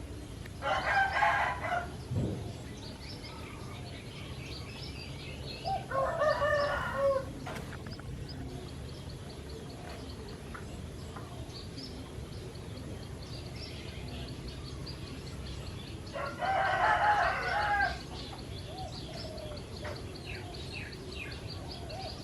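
A rooster crowing three times, each crow about a second and a half long, with small birds chirping faintly between the crows.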